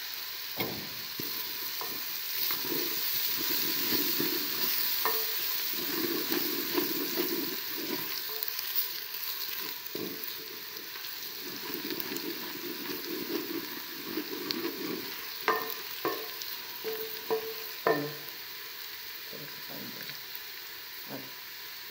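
Sliced onions and garlic sizzling in hot oil in a metal pot, stirred with a spoon that now and then scrapes and knocks against the pot, with a few sharper knocks in the second half.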